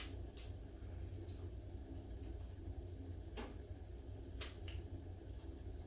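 A few faint, spaced metal clicks as a plane iron is set in a honing guide and adjusted to its angle, over a low steady hum.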